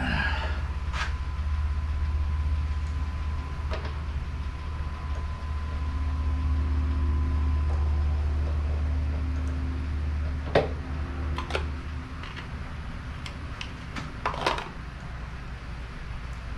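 Steady low machine hum in a workshop, easing a little after about ten seconds, with a few sharp metallic clicks as a tap is worked by hand in a drill press chuck over a milling vise.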